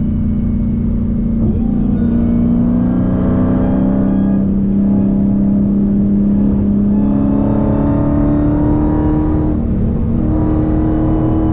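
Dodge Hellcat's supercharged V8 running under light throttle, heard from inside the cabin. Its drone holds steady and climbs gently in pitch in a few small steps.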